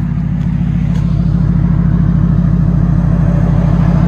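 2000 Mercury Grand Marquis 4.6L V8 idling steadily through its true dual 2.25-inch exhaust with Vibrant bottle resonators and 4-inch tips, heard at the tailpipe: an even, clean, quiet idle rumble.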